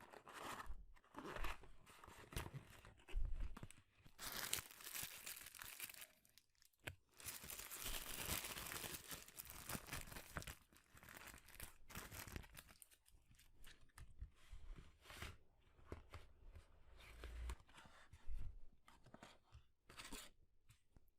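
Close-miked paper fast-food wrappers and packaging being handled, torn and crinkled in irregular rustling stretches, with some short crunchy snaps.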